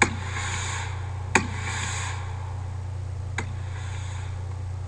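Simulated firework sound effects from a fireworks-show preview: three sharp pops, roughly 1.4 and 2 seconds apart, each followed by a brief hissing burst, over a steady low hum.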